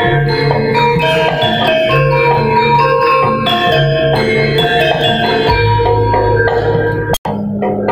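Javanese gamelan music for a jaranan horse dance: struck metal keyed and gong instruments playing a busy ringing melody over deep, held low tones. About seven seconds in the sound drops out for an instant, then the music carries on.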